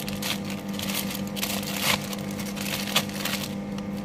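Clear plastic packaging bag crinkling in irregular rustles as an accessory is pulled out of it, over a steady low hum.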